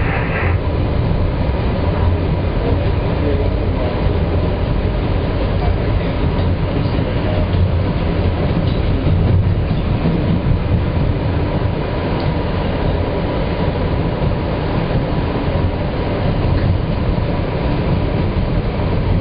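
New York subway M train running along the track: a steady, loud rumble of wheels and cars. A high squeal sounds at the very start and stops about half a second in.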